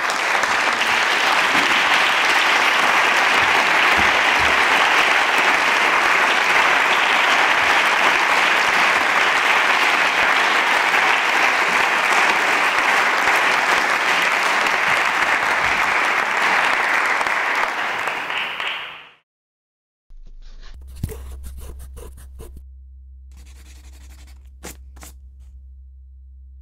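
Audience applauding steadily for about nineteen seconds after a lecture ends, then cutting off. After a moment of silence comes a quieter low hum with a few sharp ticks.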